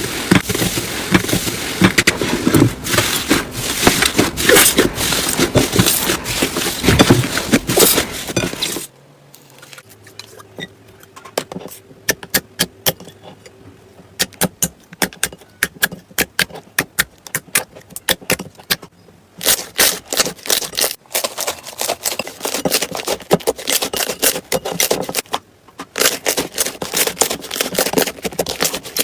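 Slime being kneaded and pressed, making dense crackling and clicking. About nine seconds in it thins to single sharp clicks and pops, and it grows dense again near the end.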